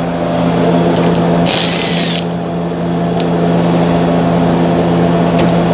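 Cordless power driver with a 10 mm socket running briefly about a second and a half in, backing out a bolt from the car's plastic engine under-cover, over a steady low hum; a couple of light clicks follow.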